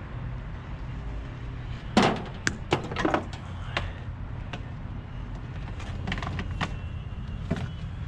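Sharp clicks and knocks of scrap cords and metal being handled and worked, the loudest about two seconds in, the rest scattered through, over a steady low hum.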